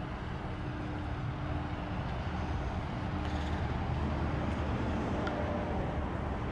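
Steady low outdoor rumble with a faint steady hum running under it.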